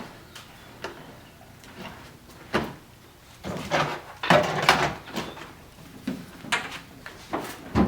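A series of knocks and clunks from a car trunk lid being moved and handled on its newly fitted hinge, loudest in a cluster about halfway through.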